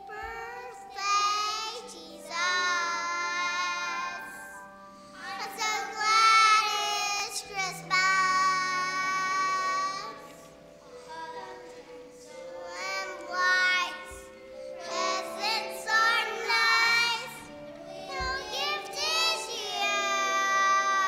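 A young girl singing solo into a microphone, in phrases a few seconds long with short breaths between them, accompanied by piano.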